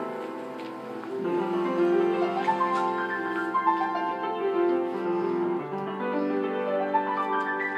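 Piano music: a slow melody over held chords, with the low notes sustained for several seconds at a time.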